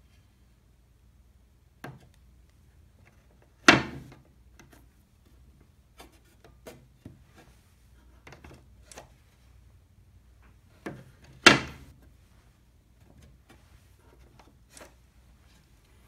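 Hands working on a walnut wooden case: two sharp wooden knocks several seconds apart, the loudest sounds, among scattered lighter taps and clicks of handling.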